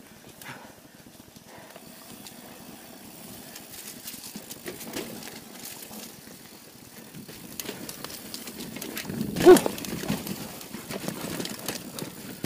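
Polygon Siskiu T7 full-suspension mountain bike riding fast down a dirt trail: tyres on loose ground and the bike rattling and knocking over bumps, busier in the second half. There is one short, loud pitched sound about nine and a half seconds in.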